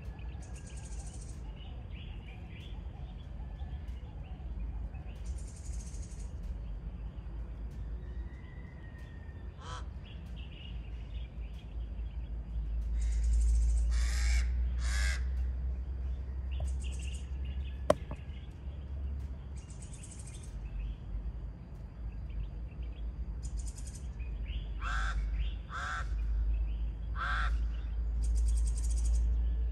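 Birds calling: harsh cawing calls come in a pair about halfway through and in a group of three near the end, with short high chirps scattered in between. A steady low rumble runs underneath, and there is a single sharp click a little past halfway.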